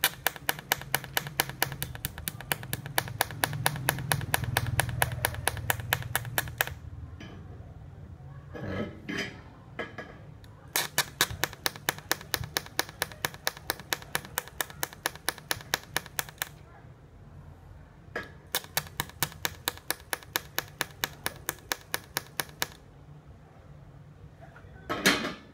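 Automatic weld-ripple attachment on a TIG welder clicking in a rapid, even rhythm of several clicks a second, in three runs of a few seconds each, with a low hum under the first run.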